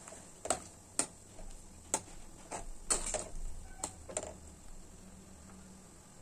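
A metal ladle clinks and taps against an aluminium kadai while stirring vegetables in water: about eight sharp, irregular clinks over the first four seconds or so, then they stop.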